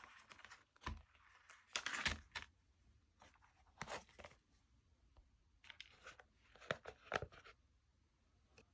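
Clay-mixed slime being squished and stretched by hand, giving several short crackly bursts and sharp little pops, the biggest cluster about two seconds in and more near the end.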